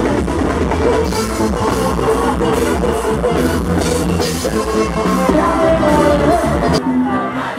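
A live gospel praise band playing amplified music, with electric guitar, a strong bass line and a male lead voice singing into the microphone. The bass drops out near the end.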